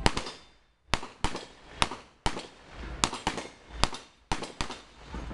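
Rapid string of revolver shots fired at plate targets, about a dozen sharp reports in a little over five seconds, irregularly spaced with short gaps between them.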